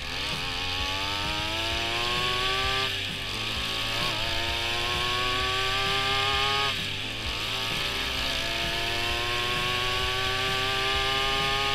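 Small two-stroke gas-trimmer engine driving a bicycle through its gears, its high buzzing pitch climbing steadily as it revs up. Twice the pitch drops suddenly and then climbs again, as the rider shifts up a gear.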